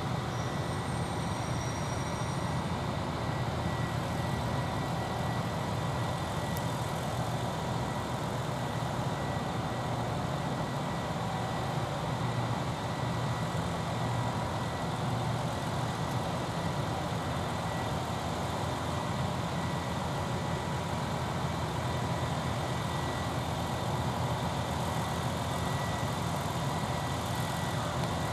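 Steady low mechanical hum of idling machinery, with a faint steady high whine over it.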